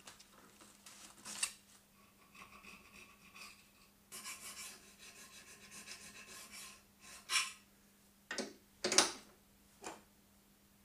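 Needle file rasping back and forth along the slot edge of a brass bar held in a vise: a series of quiet strokes for several seconds. Then a few sharp knocks or clicks follow near the end, the loudest about nine seconds in.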